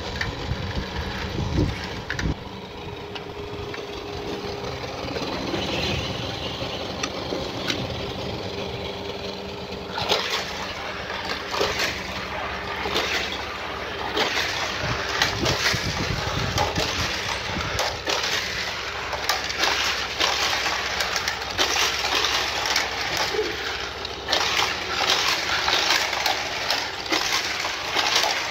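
Battery-powered toy car track running, with die-cast metal toy cars rattling and clicking along the plastic track. The rattling gets denser and louder about ten seconds in.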